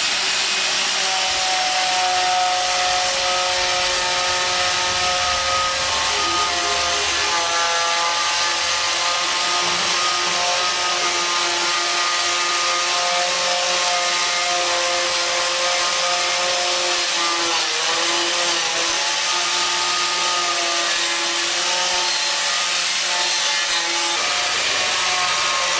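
A power tool running steadily at work on metal, a continuous grinding hiss over a motor tone that wavers slightly with load and dips briefly about two-thirds of the way through.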